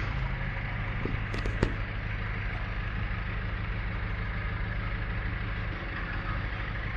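Steady low mechanical hum like an idling engine or running machine, with a few light clicks between about one and two seconds in.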